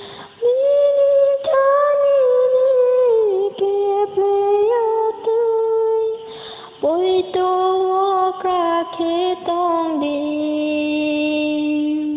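A woman singing solo with no instruments to be heard, holding long, slightly wavering notes in two phrases, each begun after an audible breath, the second about six seconds in.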